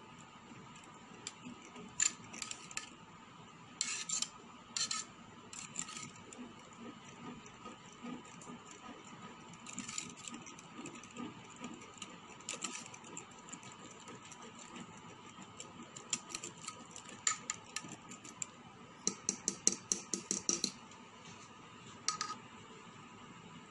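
Metal spoon clinking and scraping against the side and bottom of a metal pot while stirring thick rice pudding, in scattered short runs of taps, with a quicker rattling run of clinks near the end.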